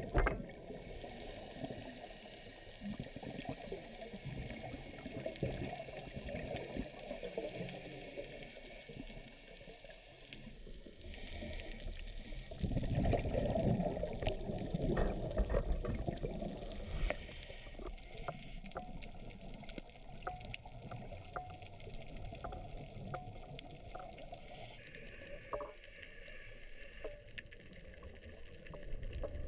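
Muffled underwater sound heard through a camera's waterproof housing: a low watery rumble with scattered sharp clicks. It grows louder for a few seconds about halfway through.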